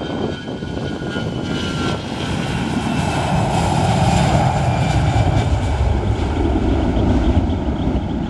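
Aircraft engines passing, a loud rush that swells about three seconds in, with high whining tones sliding downward in pitch.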